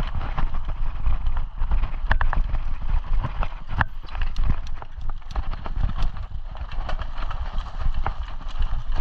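Mountain bike rattling and clattering as it rides over a rough dirt and gravel trail, with many irregular knocks and clicks over a steady low rumble.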